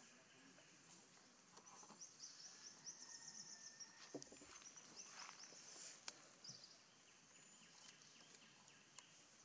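Near silence: faint outdoor ambience in woodland undergrowth, with high, rapid chirring calls from about two seconds in and a couple of light clicks.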